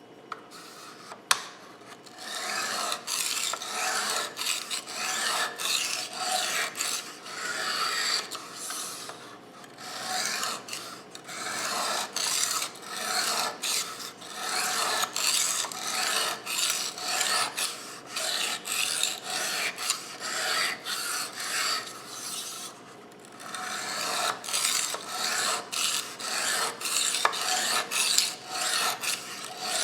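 Kitchen knife edge being drawn in repeated strokes over a coarse 220-grit aluminium oxide sharpening stone, a steady rhythmic rasping broken by two short pauses, with a sharp click just after the start. This is the coarse-grinding stage, raising a burr along the edge.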